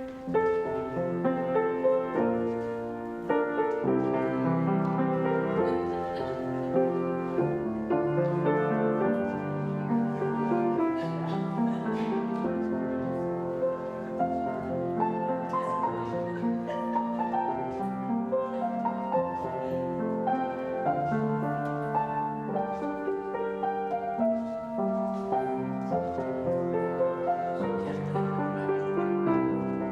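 Piano playing a slow, sustained instrumental piece, offertory music.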